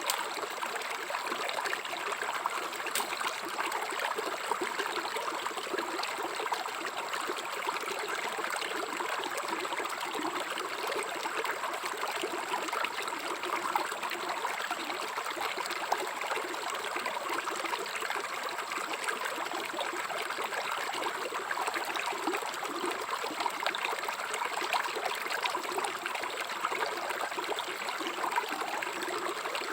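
River water flowing steadily, with a faint, steady high-pitched tone above it.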